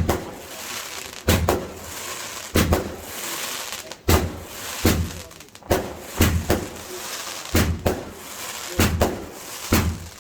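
Fireworks going off in a steady string of sharp bangs, often two close together, about every second and a half, with crackling between the bangs.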